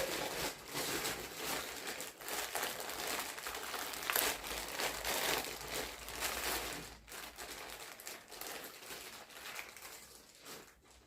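Plastic packaging of a boxed figure crinkling and rustling as the pieces are unwrapped by hand, busiest for the first several seconds, then thinning out and fading near the end.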